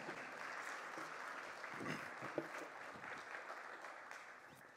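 Congregation applauding, a steady wash of clapping that gradually fades away.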